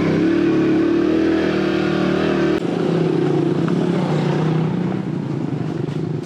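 Small 115cc cub motorcycle engine running at a steady pitch. About two and a half seconds in, its deep hum drops away and it turns rougher, and it fades slightly toward the end.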